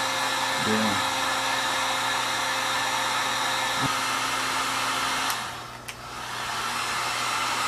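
Heat gun running steadily, blowing hot air to shrink heat-shrink tubing over a crimped eyelet terminal; its airflow noise and motor hum dip briefly a little past halfway and then come back.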